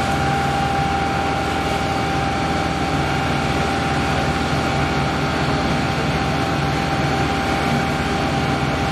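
Fire engine's engine running steadily: a constant low drone with a thin steady whine above it.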